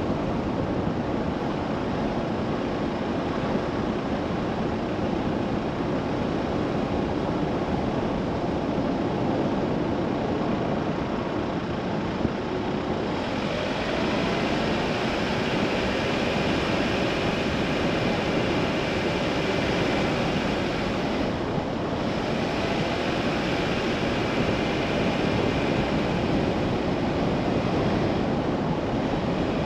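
A car driving along a narrow country lane: a steady rush of tyre and road noise over the running engine. For several seconds in the middle the hiss turns brighter, then settles again.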